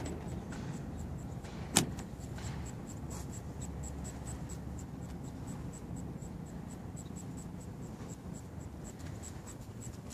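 Fine-grade Speedy Prep Towel rubbed back and forth over lubricated car paint, making a steady scratchy rasp as it drags over bonded contamination on paint left unclayed for about 15 years. A sharp click about two seconds in.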